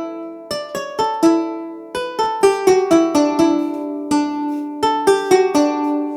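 Background music: a melody on a plucked string instrument, notes picked one after another in quick succession, each ringing and fading.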